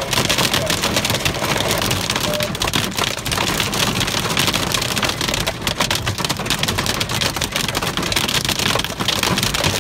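Small, pea-sized hail mixed with rain pelting a car's roof and windshield, heard from inside the car as a loud, dense, steady clatter of countless small impacts.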